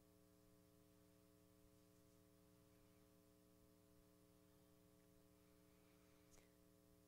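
Near silence, with a faint steady electrical hum.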